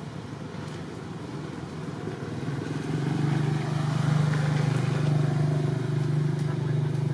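A motor vehicle's engine running, growing louder about two and a half seconds in and then holding a steady low pitch.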